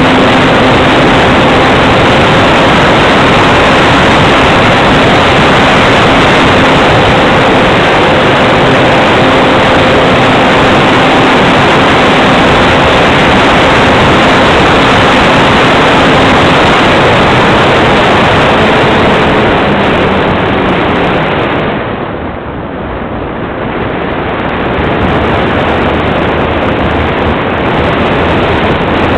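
Loud, steady wind rush over the microphone of a camera riding on a flying Gee Bee RC plane, with the steady tone of its motor and propeller underneath for the first half or so. About three quarters through the noise briefly drops away, then the wind rush comes back.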